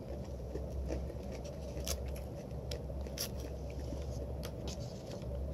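Close-miked chewing and mouth sounds of a person eating, with a few sharp wet clicks, the strongest about two and three seconds in, over a low steady hum.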